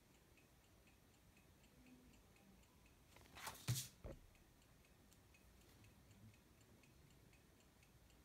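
Faint, fast and even ticking of an analog alarm clock. About three and a half seconds in comes a brief rustle and a couple of light knocks as a sheet of paper is laid down on the glass desk.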